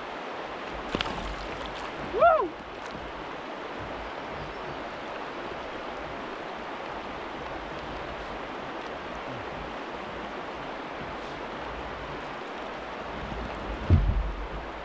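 Steady rush of flowing river water, with a shout of 'Woo!' about two seconds in and a low thump near the end.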